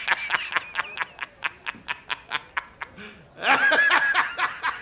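A man laughing hysterically. It starts as a fast staccato run of short 'ha' bursts, about seven a second, then breaks into a louder, high-pitched, drawn-out laugh about three and a half seconds in.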